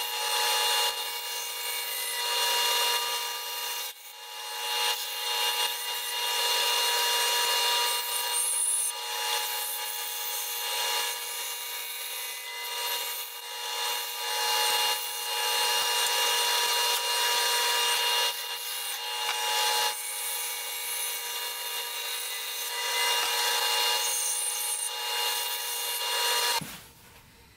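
Band saw running and cutting a spoon blank out of oak, its sawing noise swelling and dipping as the board is fed and turned along the curved outline. It cuts off suddenly near the end.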